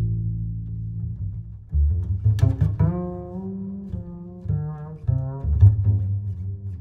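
Background music of low bowed and plucked strings, playing short sustained bass notes.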